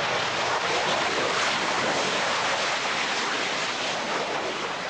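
Panavia Tornado F3 jet rolling along the runway close past, its twin RB199 engines giving a loud, steady rushing roar that eases slightly near the end.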